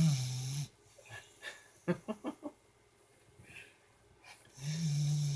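Pit bull puppy snoring in her sleep: a low buzzing snore with a hissy breath at the start, then a second, longer one from about four and a half seconds in. A few short clicks come in between.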